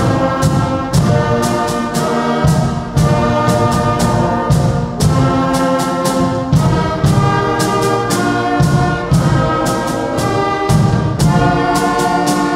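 Student concert band playing in full: flutes, clarinets, saxophones and brass holding chords over a steady percussion beat of about two strokes a second.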